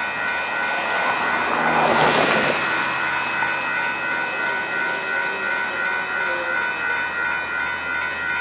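Railroad grade-crossing warning bell ringing steadily as a freight train approaches, several fixed tones pulsing evenly. A rushing sound swells and fades about two seconds in.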